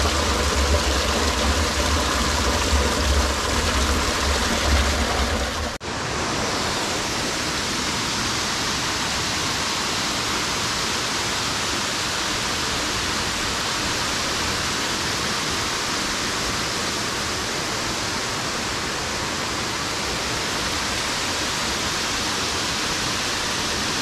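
Water pouring from a spout and splashing into a stone basin, with a heavy low rumble. About six seconds in, this changes to the steady rush of a tall waterfall cascading down a rock face.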